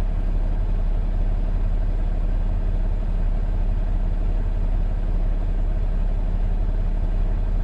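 Semi-truck engine idling steadily, an even low hum with no change in speed.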